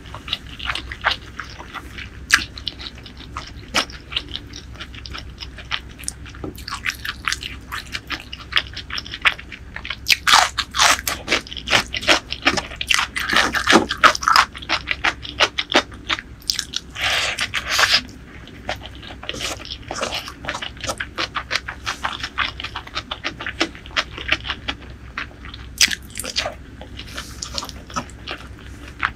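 Close-miked eating of rice and curry by hand: steady chewing and wet mouth clicks, with louder bouts of chewing about ten seconds in and again past the middle.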